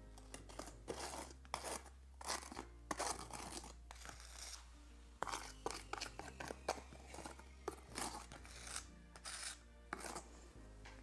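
Irregular scraping and clicking of a tool stirring thick cement-based tile adhesive in a container, over quiet background music.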